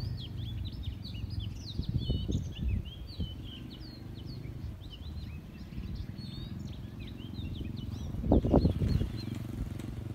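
Many birds chirping in quick, short, sweeping calls. Low rumbles and thumps on the microphone come and go underneath, loudest about eight seconds in.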